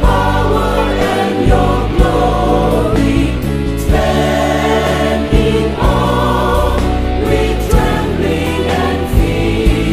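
Group of voices singing an Indonesian gospel worship song over band accompaniment with a steady drum beat.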